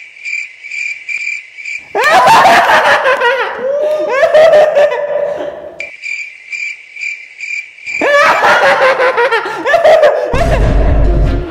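Cricket-chirp sound effect, a steady pulsing high chirp that starts and stops abruptly, alternating twice with stretches of loud laughter. A deep low boom comes in just before the end.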